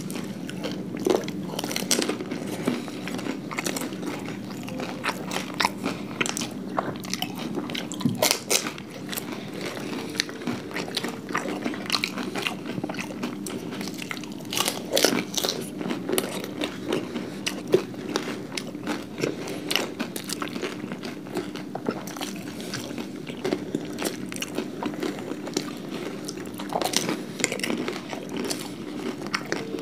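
Two people biting into and chewing panipuri (golgappa) and papdi chaat: irregular sharp crunches of crisp fried puris, with chewing between bites.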